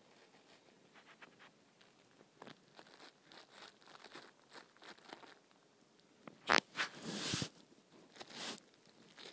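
Scratching and rustling on a fabric duvet: short scattered scrapes that grow busier in the second half, with a sharp tap about six and a half seconds in and a longer rustle straight after.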